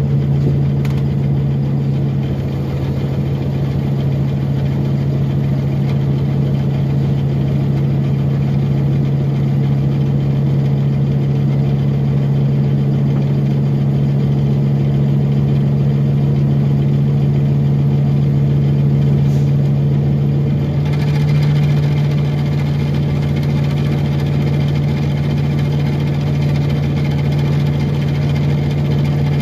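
A 2006 Orion VII first-generation diesel-electric hybrid transit bus running, with a steady low drivetrain hum. About two-thirds of the way through, a brighter, noisier sound joins the hum and carries on.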